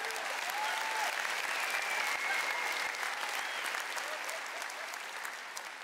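Audience applauding and cheering after a joke, swelling at the start and tapering off near the end.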